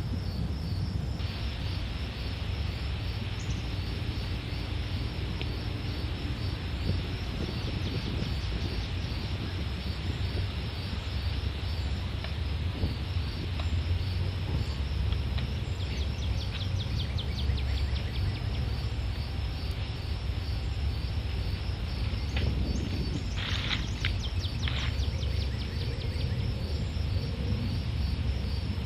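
Steady outdoor insect chorus, a rapid pulsing trill that holds at one high pitch, over a constant low rumble. A few short, sharper high calls come through about two-thirds of the way in.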